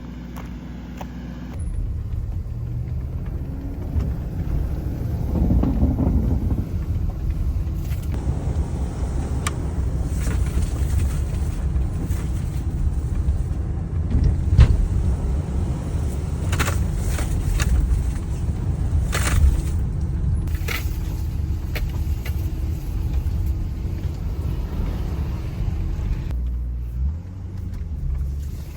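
Car being driven over rough ground: a steady low rumble, with scattered clicks and knocks.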